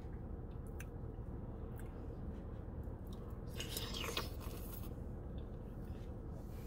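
Slurping from a spoonful of birria consommé about halfway through, with faint mouth and eating sounds and a few soft clicks over a steady low background hum.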